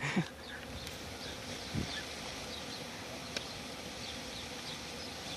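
Steady buzzing of many honey bees from an opened colony in a house wall.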